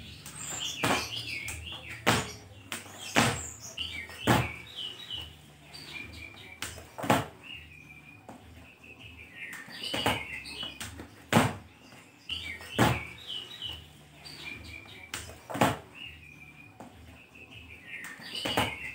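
Skipping rope turned by a child, slapping the tile floor as his shoes land on each jump, a sharp smack about every second or so with uneven gaps. Birds chirp in the background.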